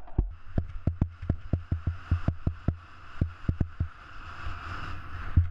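Skis running over rough, rutted snow: a rapid, irregular clatter of knocks and thuds, several a second, over the steady hiss of the skis sliding, the hiss swelling near the end.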